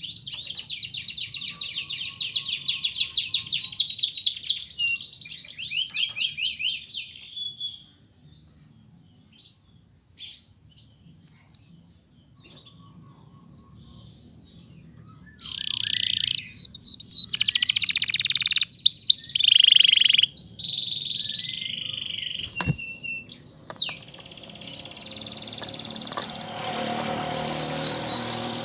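Domestic canary singing in fast, high, rolling trills and chirps. About eight seconds in, the song breaks off into a pause of several seconds with only a few scattered chirps, then resumes with dense trills. Near the end comes a lower, noisier stretch.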